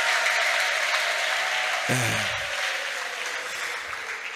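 Congregation clapping and applauding, slowly dying away, over a steady held musical tone, with a brief voice about two seconds in.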